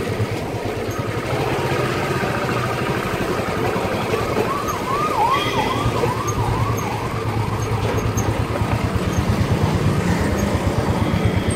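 Motorcycle engine running while the bike is ridden, with an even low pulsing beat. From about four and a half seconds in, a warbling siren-like tone sweeps up and down about six times in quick succession over some two and a half seconds.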